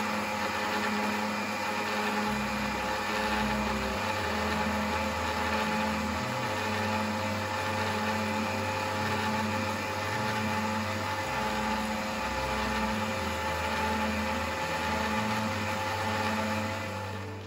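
Electric blender motor running steadily, puréeing mushroom sauce in a plastic jar, and cutting off at the very end.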